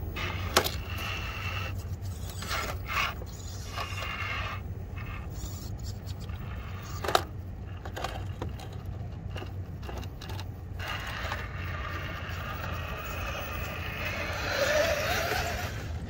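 Cross RC Demon SU4 scale rock crawler climbing over rock: its electric drivetrain whines while the tyres scrape and grind on the stone, with two sharp knocks about half a second in and about seven seconds in, and the loudest scraping near the end.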